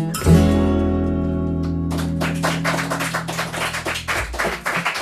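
An acoustic string band's final chord, guitar included, is struck and rings out, fading over about four seconds. From about two seconds in, a patter of scattered clapping joins it.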